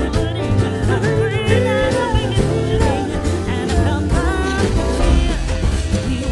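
Background music: a pop song with a sung vocal over a steady beat.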